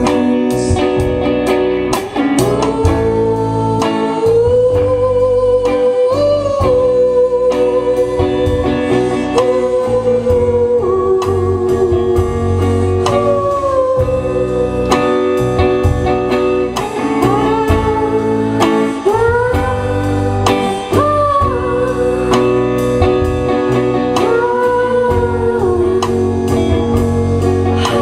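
Live band music: a woman singing long held notes over guitar, bass guitar and a drum kit keeping a steady beat.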